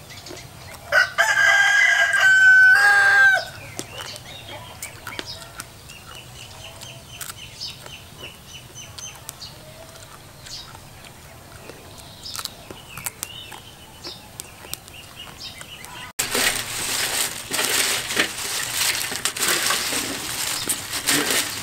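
A rooster crowing once, a long call held at one pitch, starting about a second in, with faint bird calls after it. About three quarters of the way through, a loud, even noise with many small crackles cuts in abruptly.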